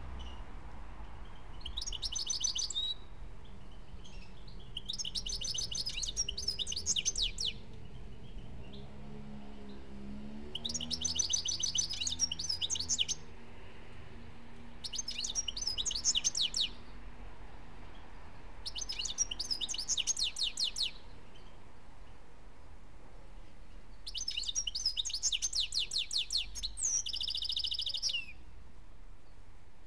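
European goldfinch singing: six phrases of rapid, high twittering, each one to four seconds long, with short pauses between them.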